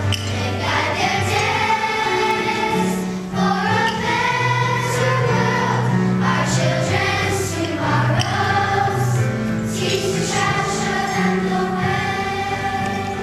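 Children's choir singing a song together, with steady low accompanying notes that shift from chord to chord beneath the voices.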